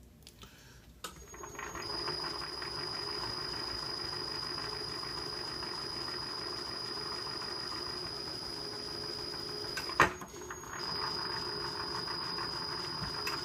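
Milling machine spindle running steadily with a high whine while power-tapping an 8-32 thread into a drilled hole. It stops with a click about ten seconds in and starts again a moment later.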